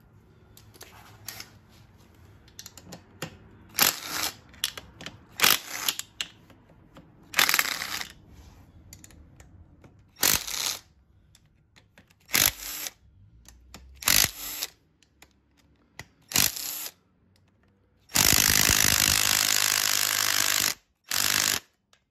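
A ratchet wrench backing out the engine side-cover bolts, clicking in about seven short bursts one to two seconds apart, then in one steady run of about two and a half seconds and a last short burst near the end.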